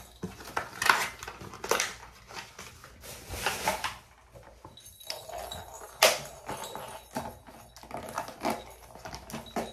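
A cardboard cat-toy box being opened and unpacked by hand: irregular rustling and scraping of cardboard and packaging, with short clicks and a sharp knock about six seconds in.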